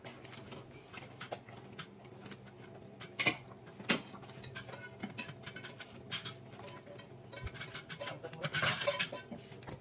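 Golden retriever eating pieces of sponge gourd from a stainless steel bowl: scattered clicks and knocks of teeth and muzzle against the metal bowl with chewing, two sharper clinks about three and four seconds in, and a busier stretch of chewing and clatter near the end, over a faint steady hum.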